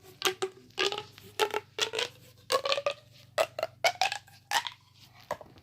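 A plastic fidget toy being handled and played with: a quick run of about fifteen short clicks and taps, some with a brief squeaky ring, stopping about a second before the end.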